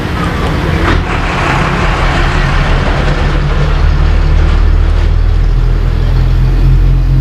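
A heavy vehicle's engine, a truck or bus, running with a steady low hum that slowly gets louder, with a hiss about a second in.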